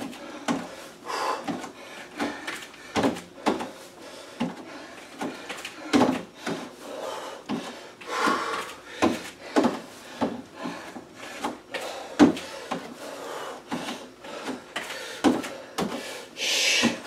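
Bare feet stepping up onto and down off a plastic aerobic step, giving a run of dull thumps about one to two a second, with a short hiss near the end.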